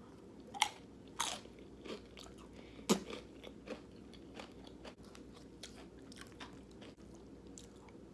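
Corn chips (Fritos Scoops) being bitten and chewed: a few sharp crunches in the first three seconds, then softer, sparser chewing.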